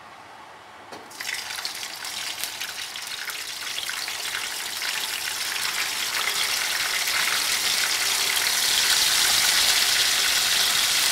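Pieces of braised chicken, still moist with their spice paste, sizzling in hot oil in a wok. The sizzle starts about a second in as the pieces go in and grows steadily louder as the oil froths up around them.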